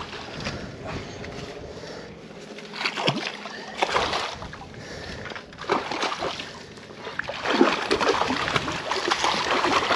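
A hooked brown trout thrashing and splashing at the surface close to the bank during the fight, in irregular bursts that get heavier and more continuous over the last couple of seconds.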